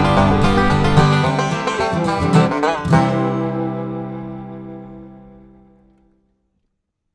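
Upbeat plucked-string background music, banjo-like, that ends on a final chord about three seconds in; the chord rings out and fades away.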